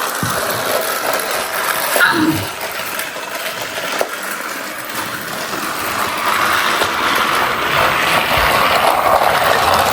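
Small battery-powered toy train motor whirring as the train runs along plastic track, with a couple of clicks; the whirr gets louder after about six seconds.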